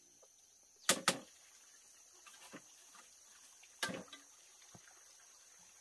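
Sharp knocks, a quick pair about a second in and a single one near four seconds, with a few fainter taps between, over the steady high chirring of insects.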